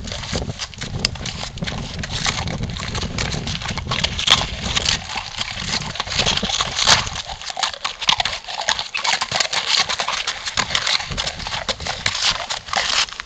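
A horse's hooves stepping and crunching on wet gravel in an irregular run of footfalls as the horse moves sideways and forward.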